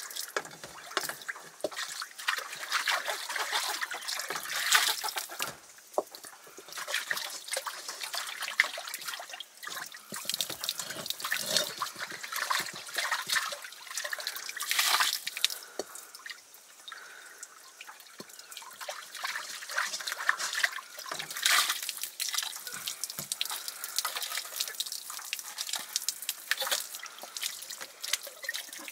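Water splashing and dripping in irregular bursts, as something is washed with water during cooking.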